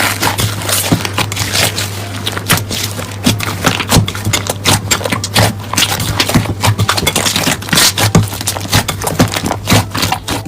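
Slime being pressed and squeezed by hand, giving rapid, irregular crackles and pops, over a steady low hum.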